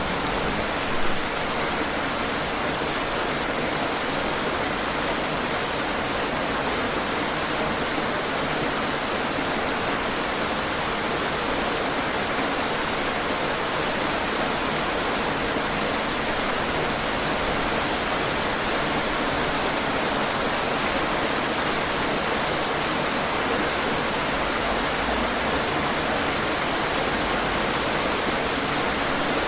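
Steady rain falling on a surface: an even, dense hiss of many drops, with one brief louder patter about a second in.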